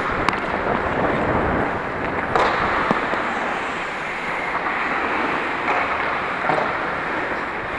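Ice hockey play: a steady scraping hiss of skates on the ice, with a few sharp clacks, one just after the start and two more about two and a half and three seconds in.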